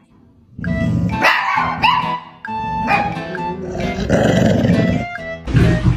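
Dog barking and growling at another dog, starting about half a second in, over background music.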